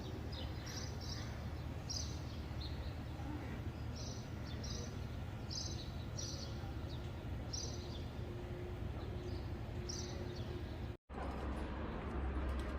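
Small birds chirping in short, high calls, about ten of them, over a steady low rumble.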